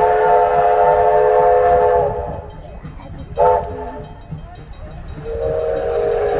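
Steam locomotive's chime whistle blowing a chord of several notes: a long blast that stops about 2 seconds in, a short toot about halfway through, then another long blast starting near the end.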